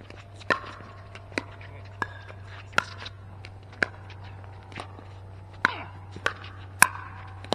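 Pickleball rally: paddles striking the hard plastic ball and the ball bouncing on the court, about ten sharp pops spaced roughly two-thirds of a second to a second apart. A steady low hum runs underneath.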